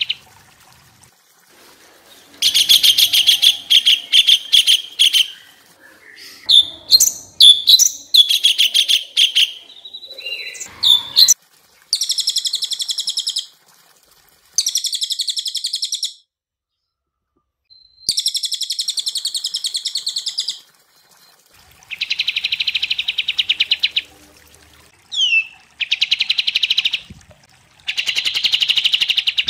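Songbirds singing, a mix of crested jay (cililin), olive-winged bulbul (kapas tembak) and blue-winged leafbird (cucak cungkok). Loud, very fast trills come in repeated bursts of about two seconds with short gaps, and a stretch of varied whistled and gliding notes sits about a third of the way in.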